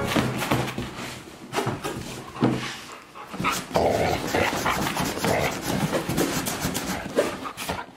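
Golden retriever panting as it tugs at a strap on a sheet of cardboard, with irregular scraping and rustling of the cardboard under its paws and mouth.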